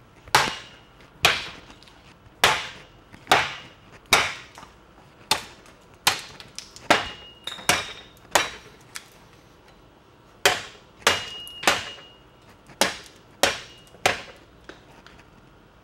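A forged steel chopper knife chopping repeatedly into an upright 2x4, about one heavy chop a second. Some chops leave a brief high ring, and there is a short pause about nine seconds in.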